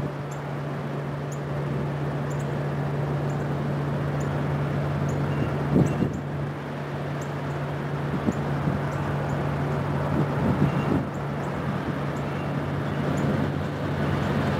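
Diesel locomotives of a three-unit light-engine move running with a steady low drone as they approach. A bird chirps in short high notes about twice a second, and a few low bumps of wind hit the microphone.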